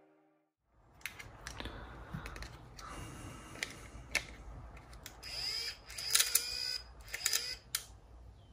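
Aiwa HS-PL30 cassette walkman being handled and tested: a string of sharp plastic clicks and knocks, with squeaky gliding mechanical sounds and a louder hissing stretch in the second half. The walkman sounds very strange; its motor turns out to have internal damage.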